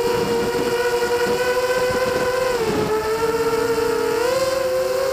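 FPV quadcopter's brushless motors and propellers whining in flight: several close tones that dip in pitch about two and a half seconds in and climb back up near the end, over rushing wind noise.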